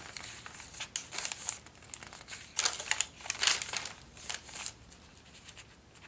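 Paper pages of a handmade junk journal rustling and flapping as they are turned and handled, in several bursts that fade near the end.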